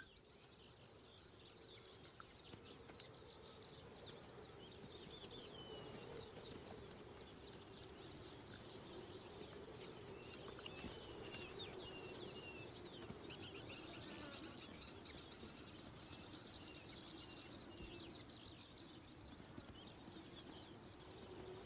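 Faint wild birdsong: short rapid trills of high chirps, coming again and again, over a low steady hum of ambient sound.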